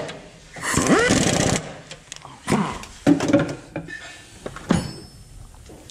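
A half-inch pneumatic impact wrench spins up with a rising whine and hammers for about a second, running down the 15 mm nuts on the transmission support. Quieter handling noises follow, with a sharp metal click near the end.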